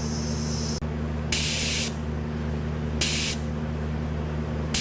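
Compressed air hissing into a motorcycle tyre's valve stem in short bursts as the tyre is brought up to pressure, three spurts with pauses between, over a steady low hum.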